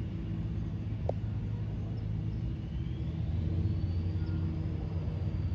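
Diesel locomotive engine of a BNSF train running in the distance: a steady low rumble that grows louder in the second half.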